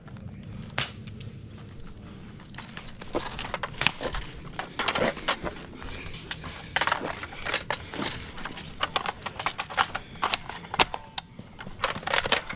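Airsoft guns firing in a backyard skirmish: many sharp, irregular pops and clicks, thickest from about two and a half seconds in.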